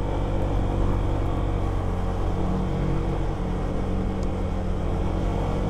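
Motor scooter engine running steadily under load as it pulls up a very steep climb, heard from on board the bike.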